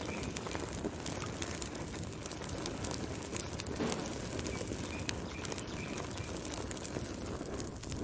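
Wood fire burning, a steady rush of flame with frequent sharp crackles and pops.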